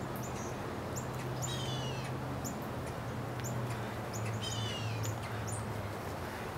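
Backyard birds calling: short high chips repeated every half second or so, with two longer calls of several falling notes about a second and a half in and again near the middle. A steady low hum runs underneath.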